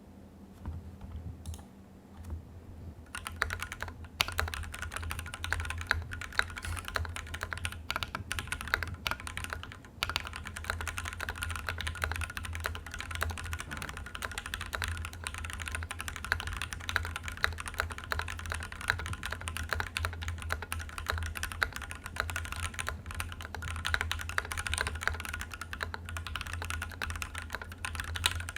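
Steady, fast typing on a custom mechanical keyboard with lubed and filmed C³Equalz x TKC Tangerine 67 g linear switches and PBT keycaps, in a case with no foam. A few scattered keystrokes come first, and continuous typing starts about three seconds in.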